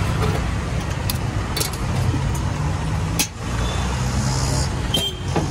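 Roadside street traffic: a vehicle engine running nearby over steady street noise, with a few sharp clicks and knocks, the loudest about three seconds in.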